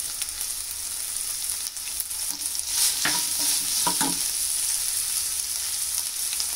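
Chicken pieces with capsicum and chillies sizzling in oil in a non-stick frying pan, stirred with a metal slotted spoon, with a few short scrapes of the spoon on the pan about three and four seconds in.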